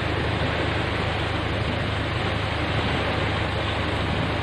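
Vehicle engine idling steadily, heard from inside the cabin, with a constant low hum under an even hiss.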